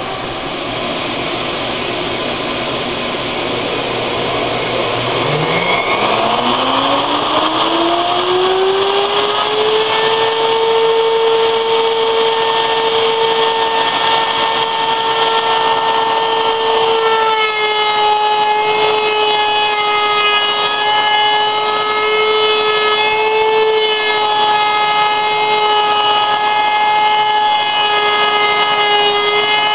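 A table-mounted router spins up with a rising whine about five seconds in, then runs at a steady high pitch over a steady rushing noise. In the second half the pitch dips slightly now and then, as when the bit takes load.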